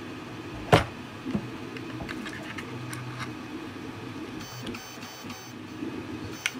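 Hand-handled 3D-printed plastic carbine parts as the charging handle and bolt are fitted to the upper receiver: one sharp click about a second in and a softer knock just after, then light taps and rattles. A short high buzz comes about two-thirds of the way through.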